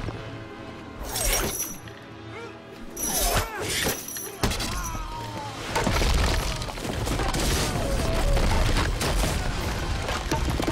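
Film fight-scene soundtrack: a run of crashing, shattering impacts and blasts laid over music, with sudden hits scattered throughout.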